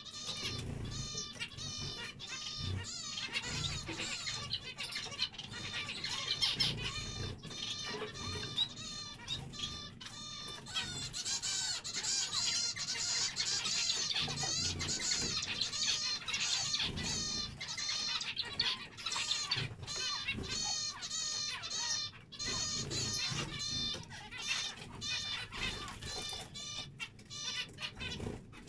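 A flock of zebra finches calling together: an unbroken chatter of short, nasal, beeping calls, several a second, overlapping one another.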